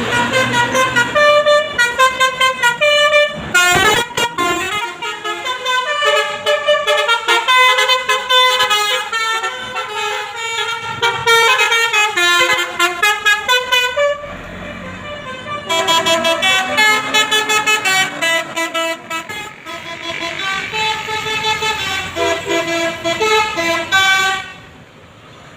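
Bus telolet 'basuri' musical horn playing fast tunes of short, hooting notes in quick succession. It plays in two long passages with a brief pause a little past halfway, and stops shortly before the end.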